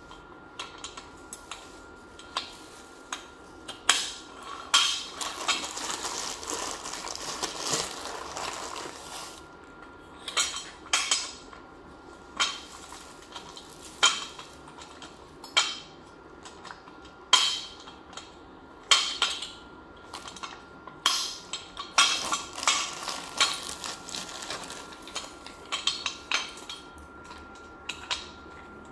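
Office chair caster wheels being pushed by hand into the leg sockets of a five-star chair base: a run of sharp hard clicks and knocks, with two longer stretches of rattling and scraping, one about five seconds in and one past the twenty-second mark.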